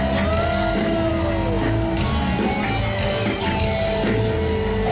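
Live rock band music playing loudly, led by electric guitar notes that bend up and down over a steady bass line and drums.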